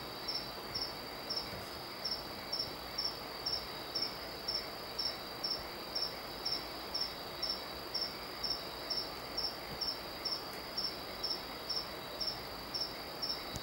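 Insect chirping in an even rhythm, about three short high chirps a second, over a continuous high trill.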